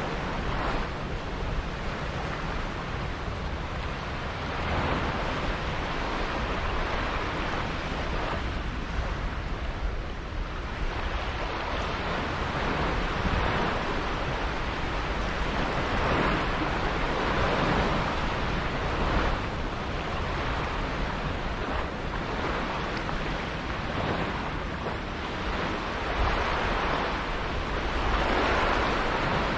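Sea water rushing and splashing with wind buffeting the microphone, a steady low rumble under a wash that swells and eases irregularly every few seconds, as heard aboard a sailboat under way.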